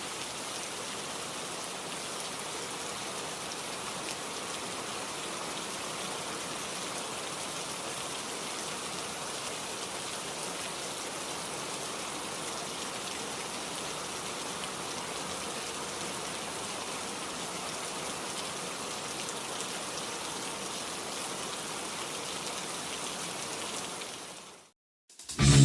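Heavy rain falling steadily, a dense even hiss of rain with no distinct drops standing out; it is a library sound effect of loud heavy rain. It fades out just before the end.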